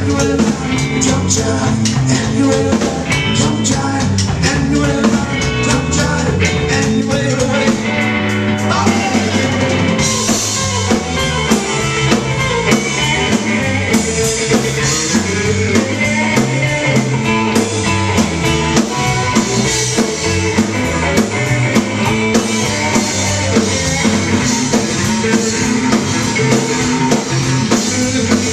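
Live rock band playing: electric guitars and a drum kit, with a man singing. The sound gets brighter in the highs about ten seconds in.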